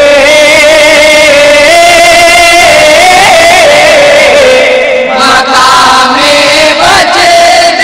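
Men's voices singing a naat, a devotional song in praise of the Prophet, in long held, wavering notes, amplified through microphones.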